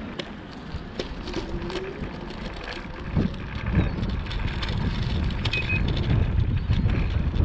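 Wind buffeting the microphone while riding across pavement: a low, unsteady rumble growing a little louder, with scattered clicks and rattles.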